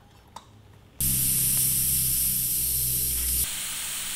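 Air hissing out of a fat bike tire's inner tube through its valve stem, which is pressed open with a small tool to deflate the tire. The hiss starts suddenly about a second in and drops to a quieter steady hiss a couple of seconds later.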